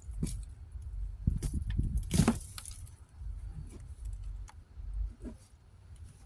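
Working the soil of a sweet potato bed at the start of the harvest: scattered clicks, scrapes and rustles, the loudest cluster about two seconds in, over a low rumble.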